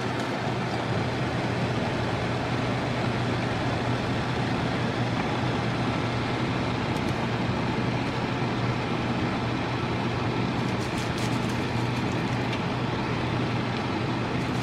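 Air fryer fan running steadily: an even whooshing noise with a low hum underneath, and a few faint ticks near the end.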